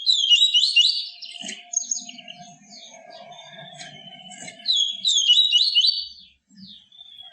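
Papa-capim seedeater singing: two loud phrases of quick, rising whistled notes, one at the start and one about five seconds in, with thinner high notes between them.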